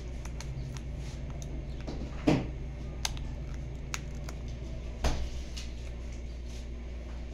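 Small clicks and rattles of a phone being fitted into a plastic tripod phone clamp, with two louder knocks about two and five seconds in, over a steady low hum.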